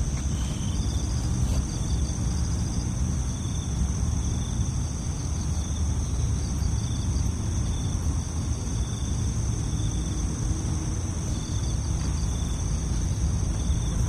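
Night chorus of crickets and other insects: steady high trills with short chirps repeating about once a second, over a continuous low rumble.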